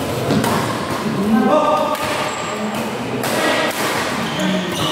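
Badminton rally in a reverberant hall: sharp racket strikes on the shuttlecock a few times and thuds of players' shoes on the court, with voices calling out.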